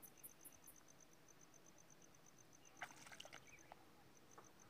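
Near silence, with a faint, even insect chirping of about eight pulses a second that breaks off briefly past the middle, and a short patch of rustling clicks about three seconds in.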